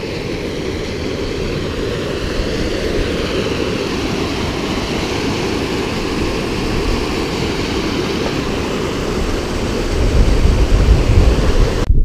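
Small moorland waterfall and river cascade, rushing water running steadily over rock. A low rumble grows over the last couple of seconds.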